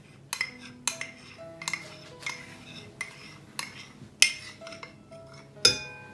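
Metal spoon scraping and clinking against a ceramic ramekin, scraping out the last of the condensed milk, in about a dozen irregular sharp clicks, the loudest a little past four seconds and near the end.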